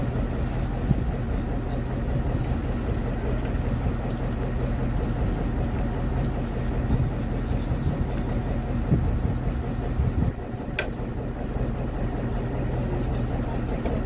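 Fishing boat's engine running steadily, a continuous low drone. A brief sharp tick sounds about eleven seconds in.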